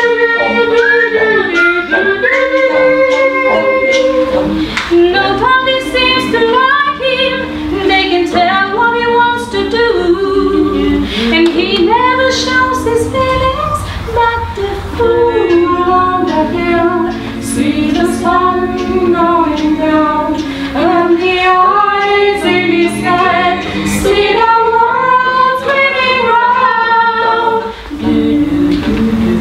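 Small mixed-voice vocal ensemble singing a cappella, several voices sounding together in harmony.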